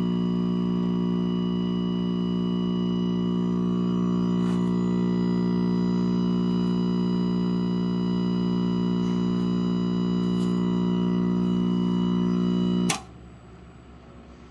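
A 1962 Packard Bell color tube television giving off a loud, steady mains-frequency buzz with many overtones, which cuts off suddenly with a click near the end.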